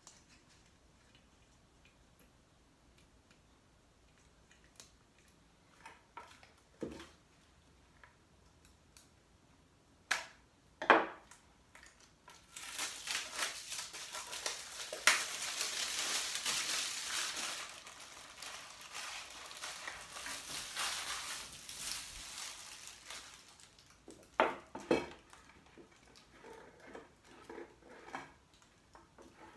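Rustling and crinkling as a new lampshade is handled, a long stretch of it in the middle, with a few sharp clicks and knocks before and after.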